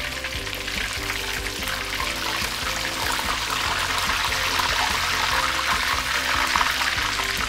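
Chicken pieces sizzling in smoking-hot oil in a wok, a steady dense frying hiss that grows a little louder over the first few seconds: the quick second fry that crisps the crust. Background music plays under it.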